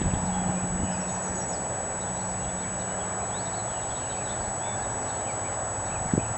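Outdoor ambience: a steady background noise with a low hum, small birds chirping now and then, a few dull knocks in the first second and one more near the end.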